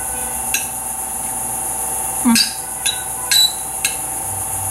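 Knife and fork clinking and scraping on a plate as a pork chop is cut: a handful of sharp clicks, most of them in the second half, over a steady high hiss.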